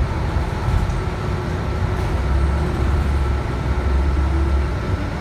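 2019 Nova LFS CNG transit bus driving along the road, heard from on board: a steady low rumble of engine and road noise with a faint drone of steady tones above it.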